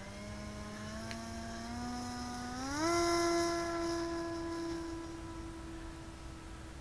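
Model airplane's E-flite Power 46 brushless electric motor and propeller whining at full power on the takeoff run. The pitch creeps up, then climbs sharply about two and a half seconds in and holds at the higher note, loudest just after the climb.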